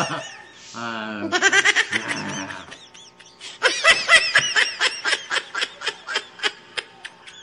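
A man laughing: a short voiced laugh near the start, then a long run of quick laugh bursts, about five a second, that die away toward the end.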